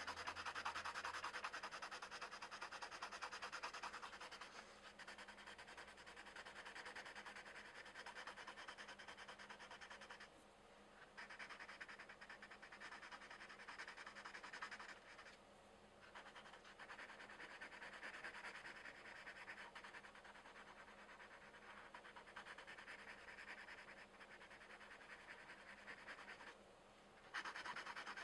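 Colored pencil scratching across coloring-book paper in quick back-and-forth shading strokes, stopping briefly a few times before carrying on.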